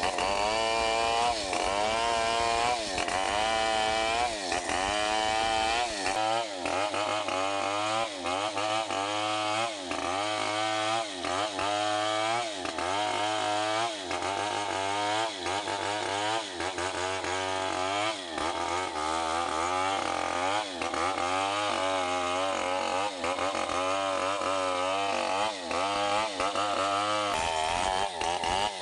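Old Stihl 070 two-stroke chainsaw running under load, ripping lengthwise along a log. Its engine pitch rises and falls over and over, about once a second.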